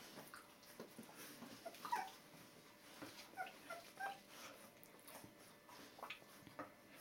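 Two-week-old Border Collie puppies giving faint, high squeaky whimpers, several short calls mostly between about two and four seconds in, among soft rustles and clicks.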